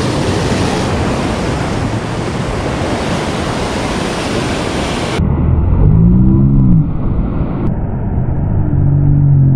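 Rough surf breaking and washing over the rocks, with wind buffeting the microphone. About five seconds in the sound turns suddenly muffled and low, leaving a heavy rumble, with a brief hummed voice around six seconds in.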